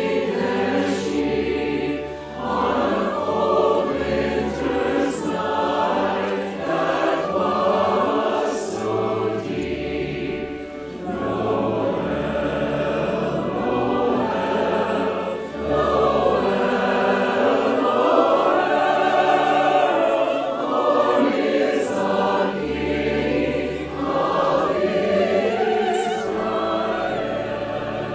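A choir singing a hymn with instrumental accompaniment, sustained bass notes changing every second or two.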